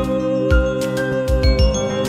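Background music: a held tone under a melody of short high notes, with a deep beat.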